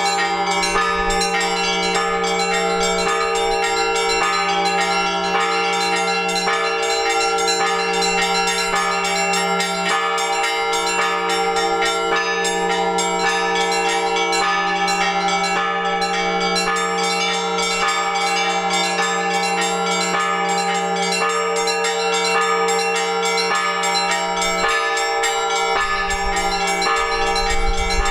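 Orthodox church bells rung in a continuous peal for the liturgy: several bells of different pitches struck in quick succession over the steady hum of the larger bells.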